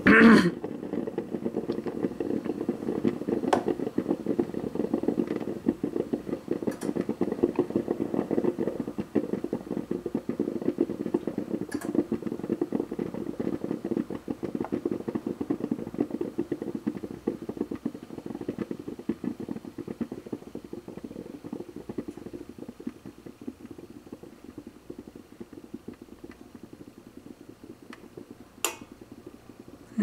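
Black & Decker drip coffee maker brewing a rinse cycle of plain water after vinegar cleaning: a fast, steady gurgling from the heater that slowly grows fainter. Near the end a single sharp click comes as the brewing light goes out and the cycle ends.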